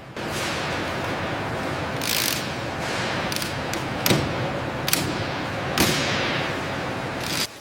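Workshop noise: a steady rushing hiss with a string of sharp knocks and clicks over it, about seven in all, before it cuts off suddenly near the end.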